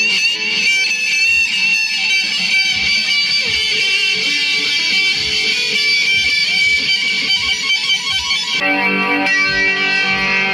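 Rock music with a lead electric guitar playing sustained, bent high notes over a steady kick-drum beat. About eight and a half seconds in, the playing changes to fuller, lower chords.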